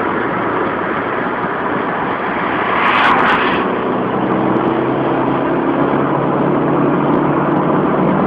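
Nissan 200SX 1.8 turbo driving at motorway speed, heard from inside the cabin: steady engine drone with road and wind noise. A brief louder rush of noise comes about three seconds in, after which the engine hum stands out more clearly.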